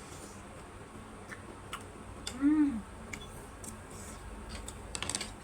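Eating sounds from people eating noodles: scattered light clicks and smacks, a cluster of them near the end, and a short hummed voice sound that rises and falls about two and a half seconds in.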